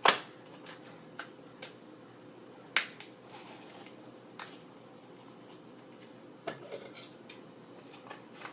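Sealed plastic package of fish fillets being worked at: a scattering of sharp clicks and snaps, the loudest right at the start and another about three seconds in.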